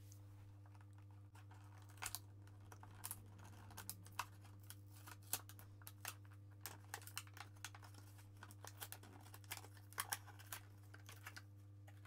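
Faint crinkling and small clicks of a clear plastic blister pack being handled and pried open, scattered irregularly throughout, over a steady low hum.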